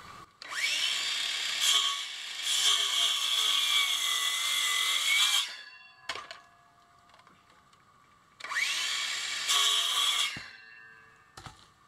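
Cordless circular saw spinning up with a rising whine and cutting into a log of very hard wood, its pitch sagging under load, for about five seconds. After a pause it spins up and cuts again for about two seconds, with a few knocks between and after the cuts.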